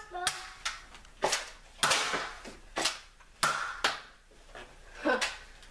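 Nerf blasters firing foam darts in a small room: a series of about eight sharp snaps, unevenly spaced, some followed by a short hiss.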